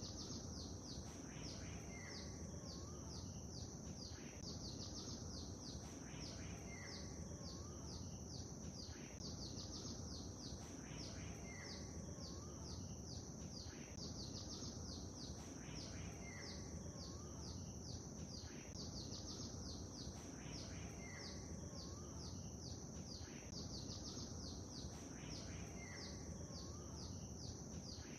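Songbirds chirping in quick, high twitters over a steady background of lake-water ambience. The same pattern of calls recurs about every four to five seconds.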